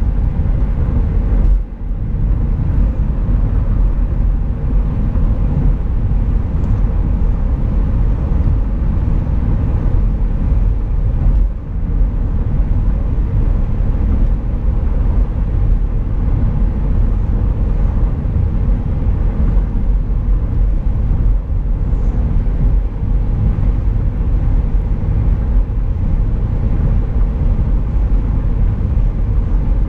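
Steady low rumble of a car driving at speed on concrete road, heard from inside the cabin: tyre and road noise with the engine underneath.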